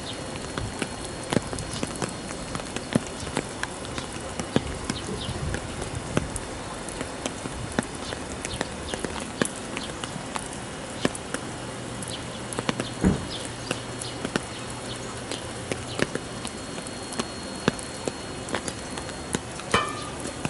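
Heavy rain falling, with a steady hiss and many drops pattering and dripping on nearby surfaces. A low hum comes in for a few seconds around the middle, with one heavier knock among it.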